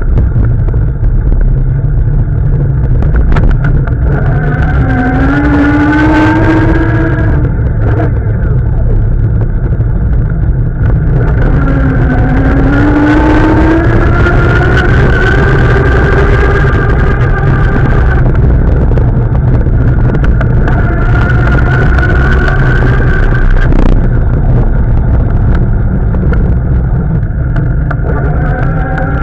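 Heavy rumble and wind buffeting on a bike-mounted action camera's microphone while riding over brick paving. A pitched hum slowly rises in pitch several times, like a motor speeding up.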